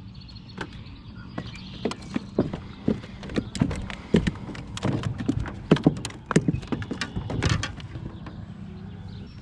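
A freshly caught bluegill flopping and slapping against the boat as it is handled, making an irregular string of sharp knocks and wet slaps, busiest about five to seven seconds in.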